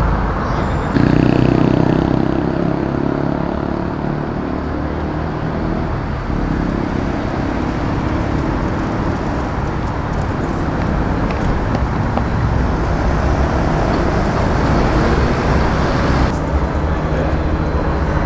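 Street traffic: motor vehicle engines running and tyres on the road, with a steady low engine hum that changes pitch about a second in and again around six seconds.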